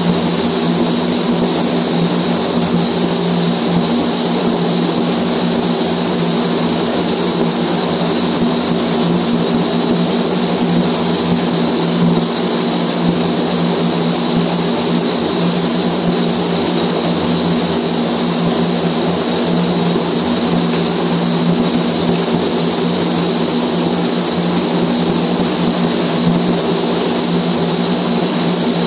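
Flux-cored arc welding overhead in a steel compartment: the arc runs without a break, a steady hiss over a low hum.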